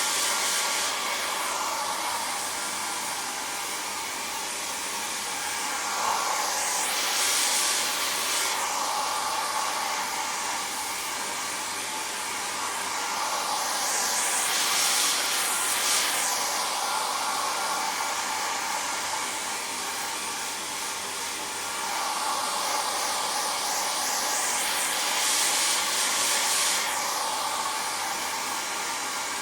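Hair dryer running continuously: a steady motor hum under rushing air. The airflow noise swells louder and brighter three times, about every eight to ten seconds, then eases back.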